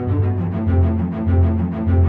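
Background music with a steady pulsing bass line.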